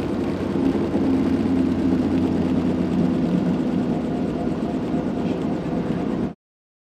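Robinson R44 Raven helicopter's engine and rotor making a steady, loud drone heard from inside the cabin, which cuts off suddenly about six seconds in.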